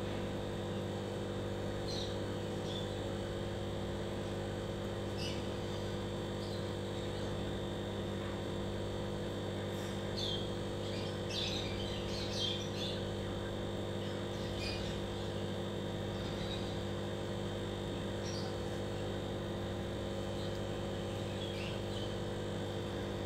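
Aquarium air pump humming steadily, with birds chirping briefly now and then, most densely around the middle.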